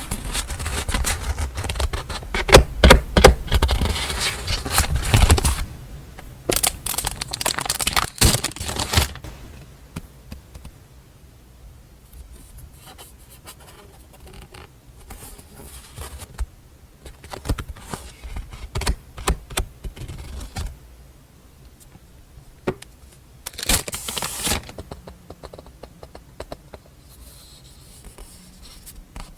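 Paper and packaging being handled and unwrapped: loud rustling and scraping for about the first nine seconds, then quieter scattered handling with light clicks and taps, and another short burst of rustling near the end.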